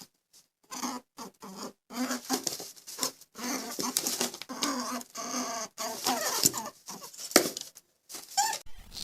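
An animal making a run of short, pitched calls one after another, with a higher rising-and-falling call near the end.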